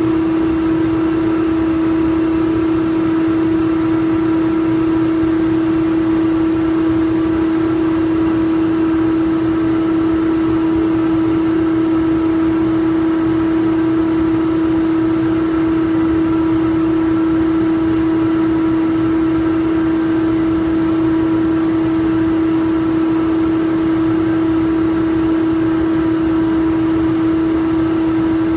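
Takano B201 slitter rewinder running while slitting PE-laminated paper cup stock: a loud, steady mechanical hum with one strong mid-pitched tone and fainter higher tones over a constant rushing noise, unchanging throughout.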